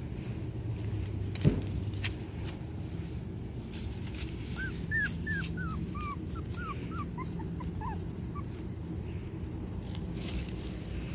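Pomeranian puppy whimpering, a quick run of short high whines about halfway through, drifting lower in pitch. A single sharp knock comes about a second and a half in.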